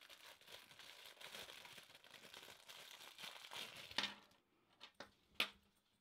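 Thin clear plastic bag crinkling as hands unwrap a lanyard from it, then a few sharp clicks near the end.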